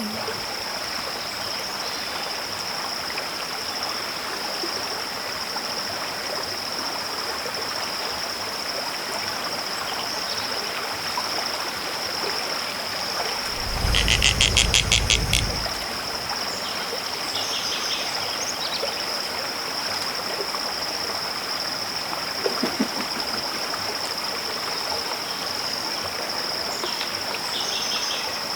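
Wetland ambience: a steady high-pitched chorus of calling animals over an even hiss. About halfway, a rapid run of about ten clicks lasts a second or so along with a low rumble, and a few fainter chirps come later.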